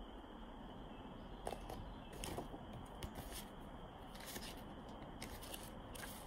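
A few faint, short rustles and light taps as the paper pages of a picture book are handled and turned, over a low steady background hiss.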